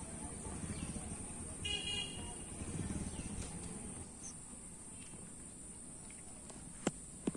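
Outdoor background with a short, steady horn-like toot about two seconds in, then two sharp clicks close together near the end.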